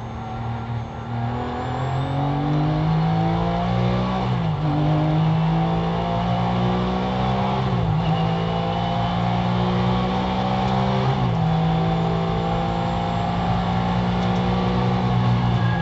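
Porsche GT3's flat-six engine at full throttle, heard from inside the cockpit, its pitch climbing in each gear with three upshifts, about four, eight and eleven seconds in, as the car accelerates down a straight.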